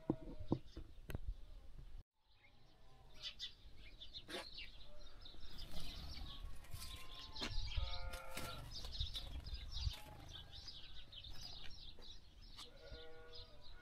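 Small birds chirping over and over, with bleating livestock calling twice, once around the middle and once near the end. A few sharp knocks in the first second.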